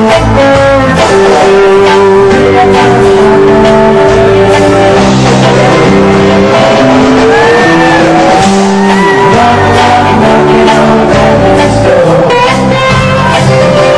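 Live rock band playing an instrumental jam: bass and drums under a lead guitar line whose notes bend and slide, most clearly about halfway through.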